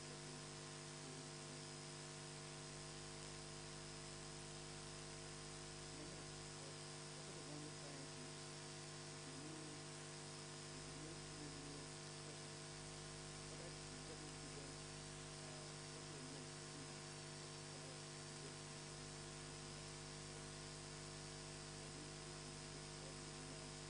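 Faint, steady electrical mains hum with a layer of hiss.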